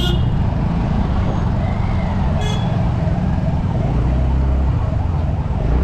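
Motorcycle riding slowly in light traffic, heard from a helmet-mounted camera: a steady low rumble of engine and wind buffeting on the microphone. A short high tone sounds about two and a half seconds in.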